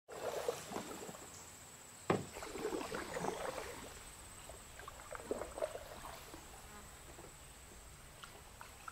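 Water splashing and dripping from canoe paddle strokes, with one sharp knock about two seconds in, likely the paddle striking the hull. A steady high insect trill runs underneath.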